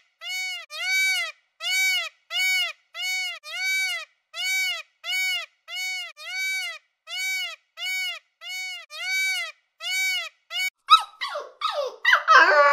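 Peacock calling in a steady series of short, identical nasal calls, about one and a half a second, with silence between each. About eleven seconds in it gives way to dogs giving several quick, high, falling cries.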